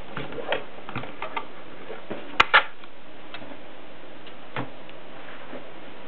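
Clicks and knocks of a Continental portable typewriter's mechanism being worked by hand, with two sharp, loud clicks in quick succession about two and a half seconds in and a softer knock a couple of seconds later.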